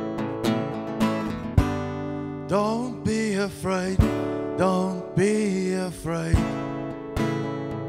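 Steel-string acoustic guitar with a capo, strummed in a steady rhythm. Two wordless sung phrases rise and fall over it a few seconds in.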